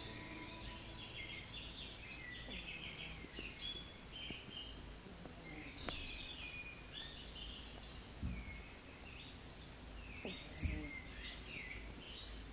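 Small birds chirping faintly in quick twittering spells, over a low steady rumble, with a few soft knocks, the loudest one near the end.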